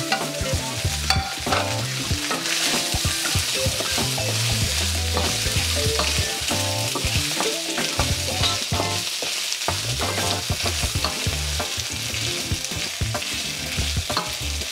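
Cubes of parboiled pork belly sizzling as they fry in a little oil in a stainless steel wok, with a wooden spatula scraping and knocking against the pan as they are stirred.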